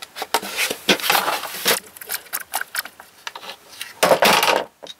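Hard plastic motorcycle tail part being handled and worked with a hand tool: irregular clicks, knocks and scraping, with a longer scrape about a second in and a loud one about four seconds in.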